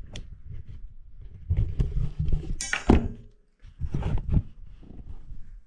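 Handling and movement noises: low thuds and bumps, with one sharp knock a little under three seconds in.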